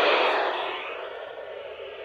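Weather radio receiver hissing with static. The hiss fades down over about the first second and stays lower to the end.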